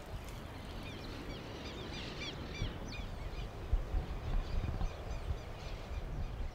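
Rural outdoor ambience: small birds chirping in a quick flurry during the first half, over a steady low rumble with a few dull low bumps in the second half.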